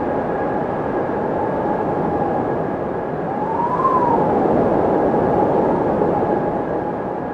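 Windmill turning in the wind: a steady rush of wind under a thin steady whistle, with a whine that rises and falls in pitch once, about three to four seconds in.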